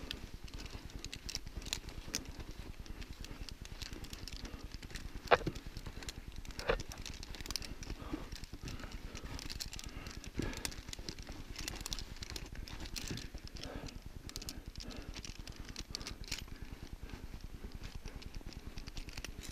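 Scattered soft knocks and patter of a person shifting against snow and gear, with a few sharper knocks, the loudest about five seconds in.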